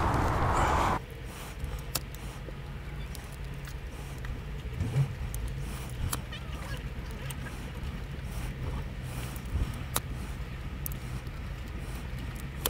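Car engine idling, a steady low hum heard inside the cabin, with a few sharp light clicks from hands handling a fishing lure. It opens with about a second of loud outdoor wind-and-rustle noise that cuts off suddenly.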